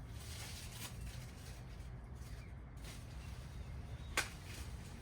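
Hand pruning shears snipping a mulberry branch: one sharp snip about four seconds in, with a fainter click about a second in, over a steady low background rumble.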